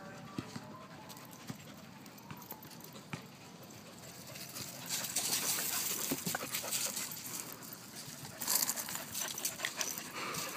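Dogs moving about close to the microphone: faint scattered ticks at first, then from about five seconds in a louder rustling hiss with sharper ticks as a dog comes right up to it.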